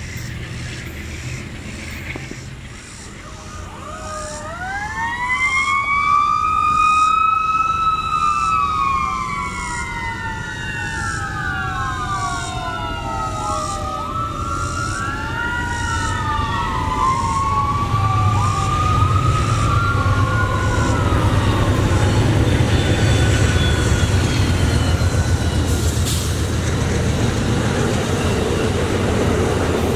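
A train's multi-note air horn blows several long blasts, each pitch sliding down as the train passes. From about the middle, the low rumble of a passing Amtrak Superliner passenger train builds and carries on.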